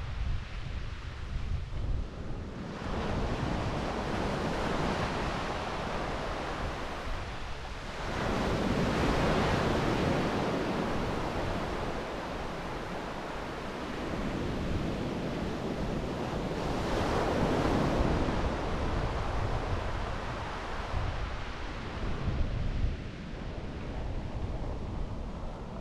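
Sea waves breaking and washing up on a sand beach, swelling louder twice, about eight and seventeen seconds in. Wind rumbles on the microphone throughout.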